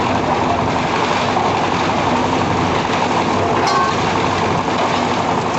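Heavy diesel construction machinery running steadily, with a brief higher-pitched squeal a little over halfway through.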